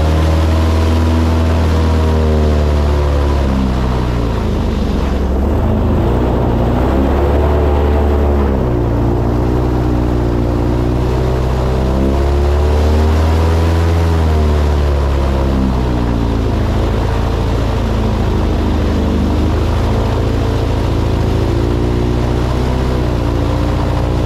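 Airboat's engine and propeller running loud underway, the pitch rising and falling several times as the engine speed changes.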